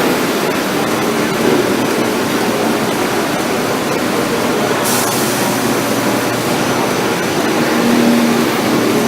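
Steady noise of dairy farm machinery running, with a short hiss of air about five seconds in.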